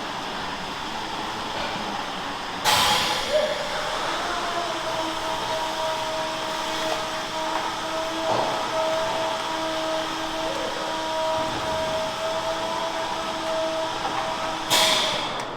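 Milking parlor machinery running with a steady drone and a held tone, broken by two sudden loud bursts of noise: one about three seconds in and one near the end.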